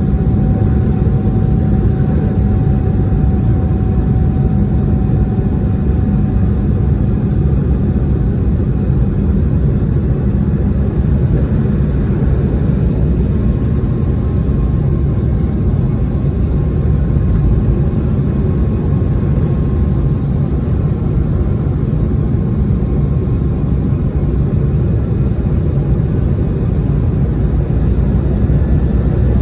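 Steady cabin noise of a jet airliner in flight: the engines and rushing air as heard from a window seat. Faint thin whines come and go, one fading a quarter of the way in and another from about halfway.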